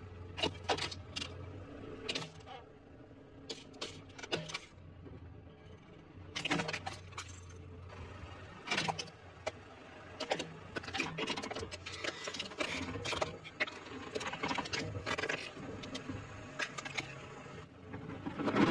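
Hard plastic toys cracking and crunching under a car tyre in repeated clusters of snaps and crackles, over the car's engine running low.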